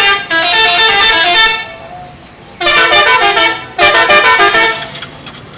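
Bus 'telolet' multi-tone horn playing short melodic phrases, its notes stepping up and down in pitch. Several loud blasts come in two pairs, with a pause of about a second between the pairs.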